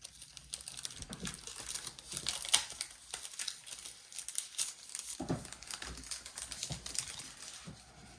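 Plastic trading-card pack wrappers crinkling and cards being handled, in irregular rustles and light clicks.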